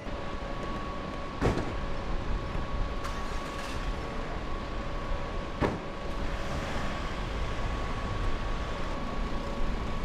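A car door shutting with a sharp knock, then a second knock about four seconds later, over a steady hum with a faint high whine.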